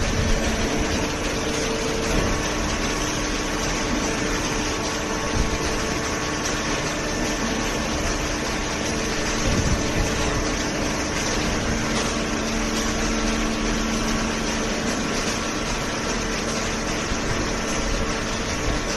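Horizontal hydraulic cardboard baler running: a steady, unbroken machine hum with a few constant tones, from its hydraulic pump and motor.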